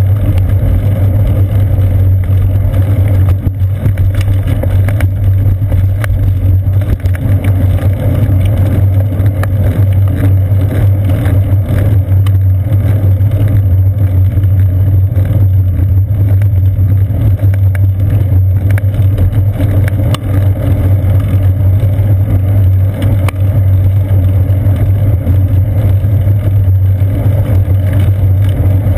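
Steady low rumble of wind and road vibration as a bicycle rides along a paved path, picked up by a GoPro Hero 2 mounted on the seat post, with a few faint clicks.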